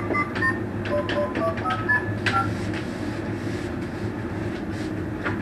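A steady low rumbling hum with a run of short tones at changing pitches over it. The tones stop about two and a half seconds in, leaving only the hum.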